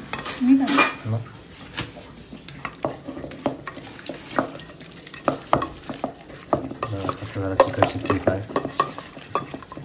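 Chicken pieces being stirred into a thick marinade of curd, spices and cornflour in a bowl, with many short, irregular clicks.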